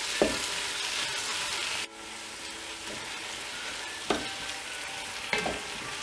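Sliced tomatoes, onions and green chillies sizzling steadily in hot oil in an enamelled pot, stirred with a wooden spatula that knocks and scrapes against the pot three times. The sizzle turns suddenly quieter about two seconds in.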